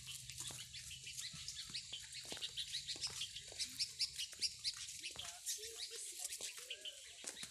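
Many small birds chirping: a dense scatter of short, high chirps overlapping one another.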